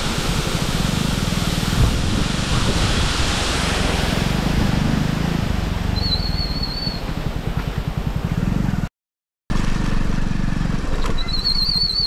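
Steady low rumble of a vehicle on the move, engine running with wind on the microphone, with a brief high warbling call about six seconds in and again near the end. The sound cuts out for about half a second near nine seconds.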